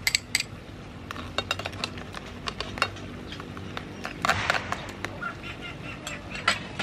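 Metal spoon clinking against a small ceramic bowl and a frying pan as sauce is spooned in: a quick run of clinks at the start, scattered clinks after, and a short scrape in the pan about four seconds in.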